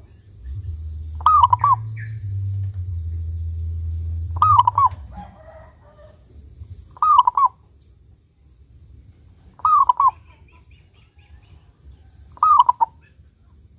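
Zebra dove (perkutut) cooing: five short phrases, one every two and a half to three seconds. A low hum sits under the first few seconds.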